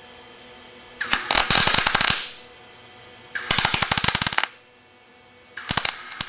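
Harbor Freight MIG 170 welder on its lowest voltage setting, striking three short bursts of MIG welding on thin 22-gauge sheet steel, each about a second long, with the third starting near the end. The arc crackles with a lot of popping and spitting, a sign of a poor weld.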